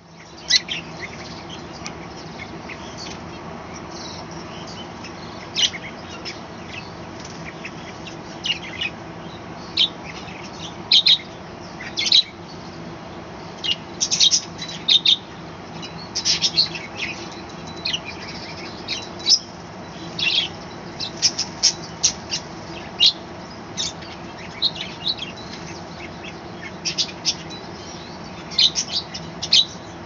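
A colony of budgerigars chirping and chattering: short, high calls coming in irregular clusters, over a steady low hum.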